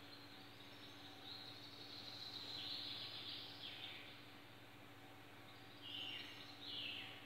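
Quiet bird calls: a few high chirps and short downward-sweeping notes, in groups about a second in, at around three to four seconds, and twice near the end, over a steady low hum.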